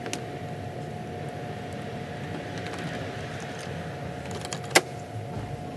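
Steady background hum with a few faint ticks, and one sharp click a little before the end.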